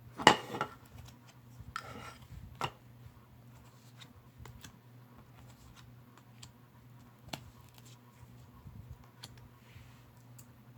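Tarot cards being handled and laid into piles: a quick papery swish with clicks just after the start, another softer swish about two seconds in and a sharp card tap, then scattered light taps and ticks.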